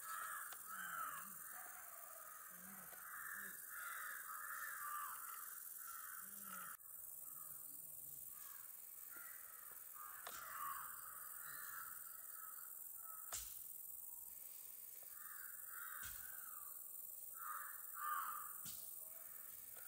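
Crows cawing repeatedly and faintly, harsh calls coming about once a second with short gaps, over a steady high hiss. There is a sharp click about two-thirds of the way through.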